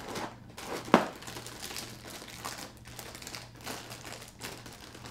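Plastic cereal bag liner crinkling as it is pulled open inside the cardboard box, with a sharp crack about a second in and irregular crackles after.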